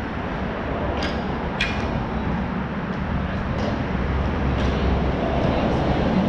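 Steady low rumble with about five sharp clacks scattered through it, the loudest a little before two seconds in: ball-hockey sticks hitting a ball on the rink.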